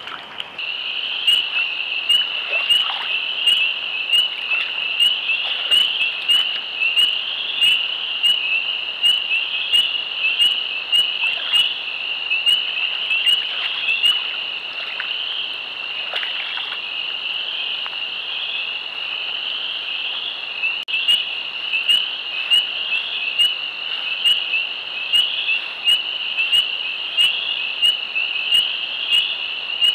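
A dense chorus of frogs calling together as a steady, shrill massed trilling. A sharp ticking about twice a second runs through it and drops out for several seconds midway.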